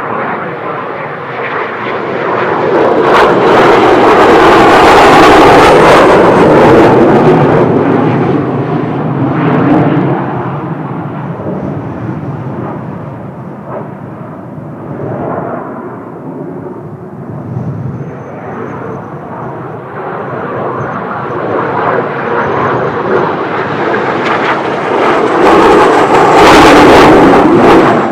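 Blue Impulse Kawasaki T-4 jet trainers flying past: turbofan noise swells to a loud peak about four to seven seconds in and fades away. It then swells again to a second peak near the end, with a thin high whine coming in as the second pass approaches.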